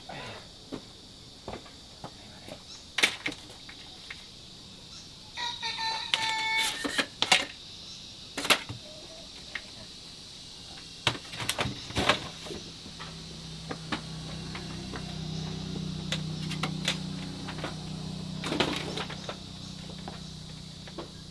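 Scattered knocks and clicks, a short bird call about six seconds in, and a steady high insect drone, with a low hum coming in during the second half.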